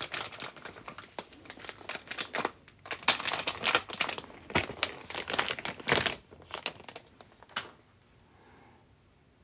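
Plastic packaging crinkling and rustling in irregular bursts as it is handled and unwrapped. It stops about eight seconds in.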